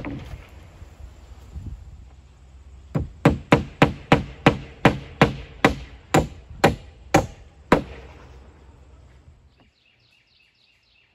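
Hammer driving nails into plywood roof sheathing: about fourteen quick, sharp blows over roughly five seconds, each with a short ring.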